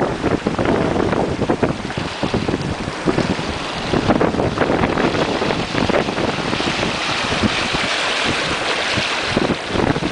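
Wind buffeting the microphone over the rushing hiss of a boat's wake churning along the hull, with a stronger hiss of spray from about six and a half seconds in until near the end.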